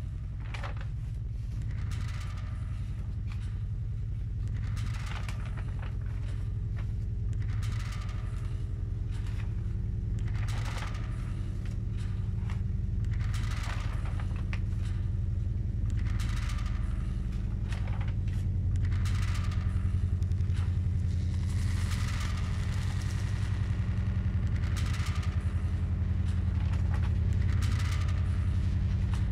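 Paper pages of a large photocopy book rustling and brushing as they are turned one after another by gloved hands, a short rustle every couple of seconds, over a steady low rumble.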